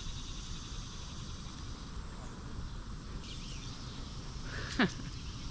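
Steady chirping of evening insects such as crickets over a low outdoor background hiss. Near the end comes a single short squeak that falls in pitch.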